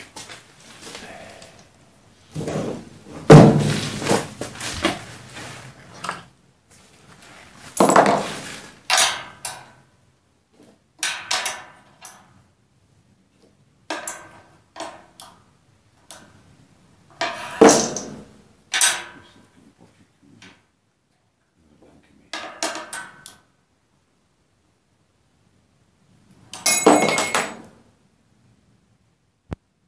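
Irregular knocks, clanks and clinks of a wood chipper's metal hopper and housing being handled and fitted by hand, with quiet gaps between them. The loudest knock comes about three seconds in, and one clank near the end rings briefly.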